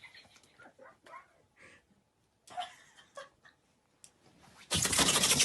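Dog sneezing: faint sniffs and snuffles, a short snort about two and a half seconds in, then one loud sneeze near the end.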